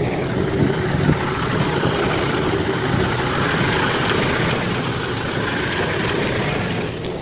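A bulldozer's heavy diesel engine running steadily, with a broad hiss that swells about three seconds in and eases off near the end.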